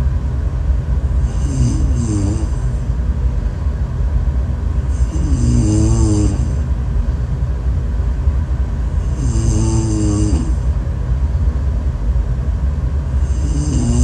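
A woman snoring in her sleep: four snores about four seconds apart, each with a wavering pitched tone and a breathy hiss, over a steady low rumble.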